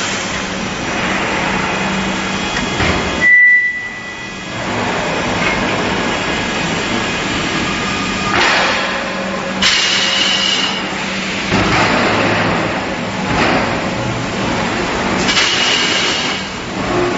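Steady hum of pipe-mill machinery around a steel-pipe marking line, with a short high whistle about three seconds in and several surges of hiss from about eight seconds on.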